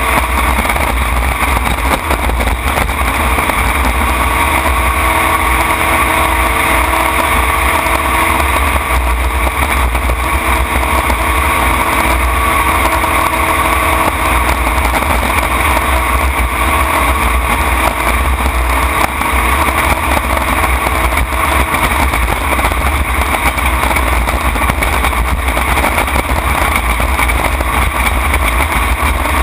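Racing jet boat's engine running steadily at high speed, a loud unbroken drone from the open cockpit. Heavy wind rumble buffets the microphone.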